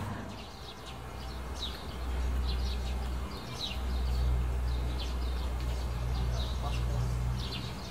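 Small birds twittering: many short, quick high chirps, over a steady low rumble.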